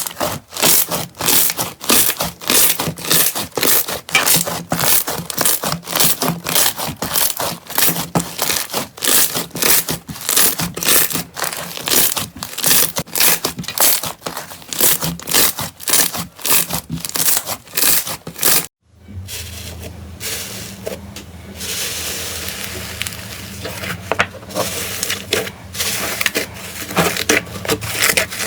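Slime being squeezed and pressed by hand, giving dense, rapid crackling clicks. About two-thirds of the way through, it cuts off and gives way to softer crackles over a steady low hum.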